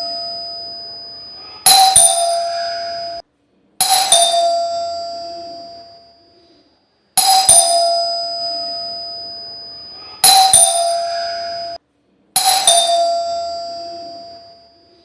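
Calling bell (doorbell) ringing five times. Each ring is a quick pair of metallic strikes whose ringing dies away over one to three seconds. Two of the rings are cut off suddenly.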